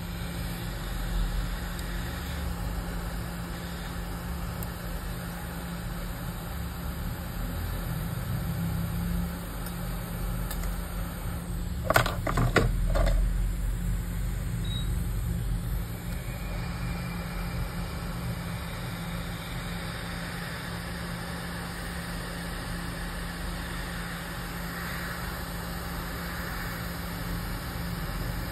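Steady blowing hum of a hot-air rework station, with a few sharp clicks about twelve seconds in.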